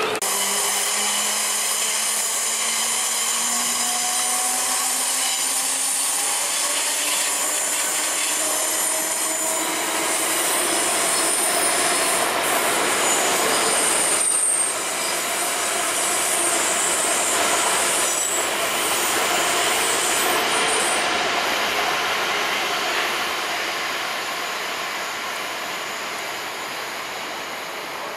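Electric multiple-unit trains running on curved track: a rising motor whine over the first several seconds as a train pulls away, steady wheel-on-rail noise, and high wheel squeal from the curves a little before and a little after the middle. The noise fades near the end as the trains draw away.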